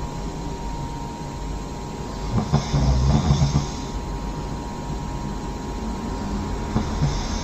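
A person snoring loudly. One snore comes a little over two seconds in and lasts about a second and a half, and the next begins near the end.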